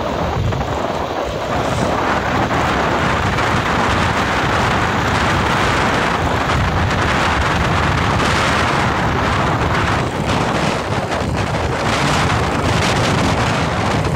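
Wind buffeting a camera microphone on a moving vehicle: a loud, steady rush with a low rumble beneath it.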